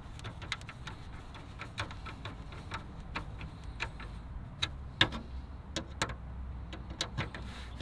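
Hand screwdriver driving small screws into the back of a plastic vehicle grille: a string of irregular light clicks and ticks as the screws turn into the plastic.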